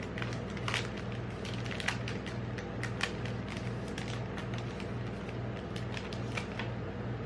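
Plastic chocolate-bar wrapper and inner foil crinkling and tearing as a Cadbury Dairy Milk bar is unwrapped by hand, in irregular sharp crackles, over a steady low hum.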